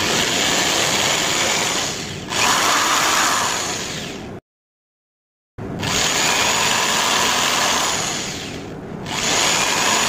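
Small handheld electric drill running as a thin twist bit bores holes through a strip of MDF board. The drilling goes in two stretches, with a break of about a second of silence near the middle, and the level dips briefly twice.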